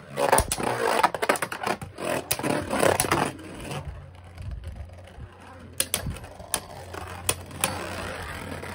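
Two Beyblade Burst QuadStrike tops, Divine Xcalius and Ultimate Valtryek, spinning and clashing in a plastic Beyblade stadium. For about the first three seconds there is a rapid clatter of collisions. After that a quieter whirring scrape of the tops on the stadium floor continues, with a few sharp clicks as they strike each other.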